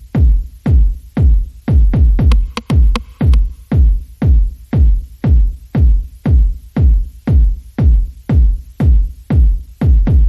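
Background electronic music with a heavy bass kick drum about twice a second.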